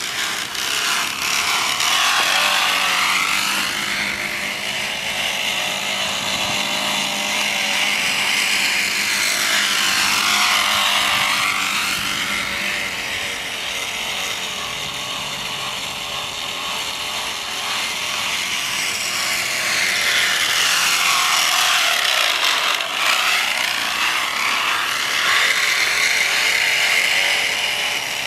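Bicycle wheel spokes striking a water bottle as the bike is pedalled, making a continuous buzzing rattle like a small motor. Its tone sweeps down and back up a few times.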